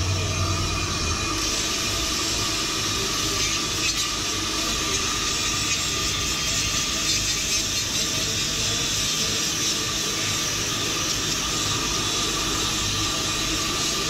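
Ammco 4000 brake lathe skimming a brake rotor: a steady hiss with a thin, even whine, which picks up about a second in and then holds.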